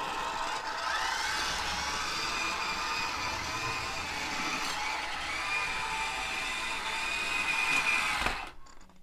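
HO scale diesel locomotive's small electric motor and geared trucks whining as it runs around the track, freshly cleaned and oiled and running fine. The whine rises as it gets up to speed about a second in, holds steady, then cuts off suddenly near the end as the locomotive derails.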